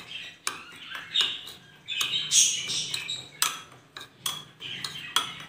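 Metal spoon stirring a dry mix of ground powders in a ceramic bowl: irregular scrapes and clinks of the spoon against the bowl, about a dozen strokes.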